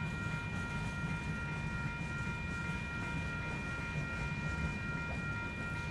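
Freight train of covered hopper cars rolling past, its wheels on the rails making a steady low rumble. Several steady high-pitched tones sound above it.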